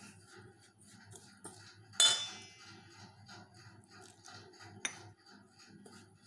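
Flour being mixed in a stainless steel bowl by hand and spoon: faint, soft repeated scraping strokes, with one ringing metal clink about two seconds in and a short sharp tap near five seconds.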